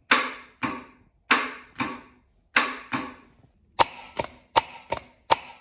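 Brand-new starter motor on a 1994 MerCruiser 350 Magnum 5.7 L V8 clicking without turning the engine over: three pairs of sharp clicks about half a second apart, then a quicker run of clicks, about four a second, near the end. Something is wrong with the starter motor.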